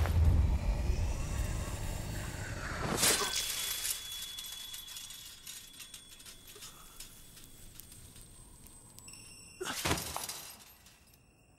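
A sudden crash with a deep rumble, then a sharp shattering about three seconds in, after which a high ringing tone lingers. Another sharp hit comes near the end.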